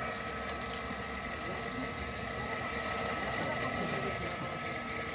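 Small electric centrifugal water pump running steadily, pumping well water up to a filling pipe, with a constant whine over a low hum.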